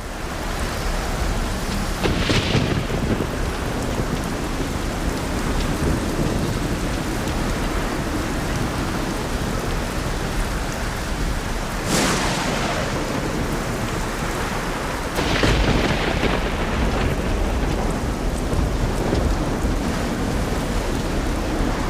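Thunderstorm: heavy rain and wind noise throughout, with sudden loud cracks of thunder about two, twelve and fifteen seconds in.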